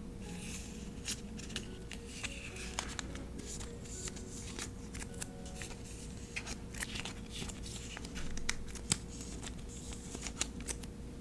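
Soft rustling and scattered light clicks of clear plastic binder pocket sheets as strips of kiss-cut washi tape are slid into the pockets.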